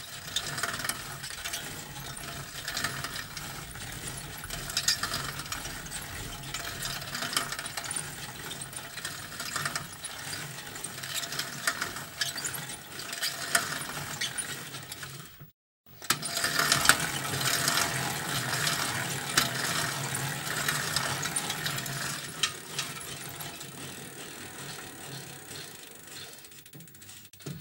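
Bicycle recorded close up: chain and drivetrain rattling with a stream of small ticking clicks. It stops dead for about half a second midway, then carries on and fades out near the end.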